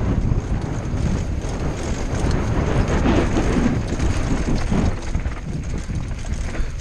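Wind buffeting a helmet-mounted camera as a mountain bike descends a rough dirt trail, with the bike's tyres and frame rattling and knocking over the bumps.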